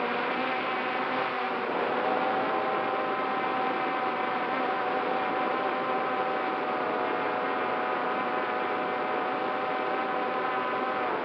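Quadcopter drone's electric motors and propellers whining steadily in flight, heard close up through its own onboard camera. Several tones sound together, with only slight shifts in pitch.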